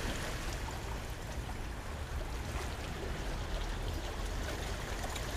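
Small sea waves washing and trickling over shoreline rocks, a steady wash with no distinct splashes, over a low rumble.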